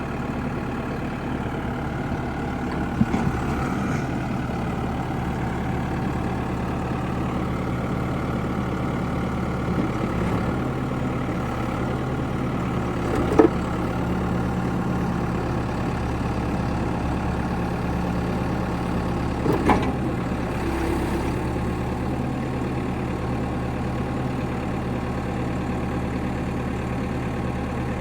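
Diesel engine of a 2001 New Holland backhoe loader idling steadily, with three short sharp knocks spread through, the loudest about halfway.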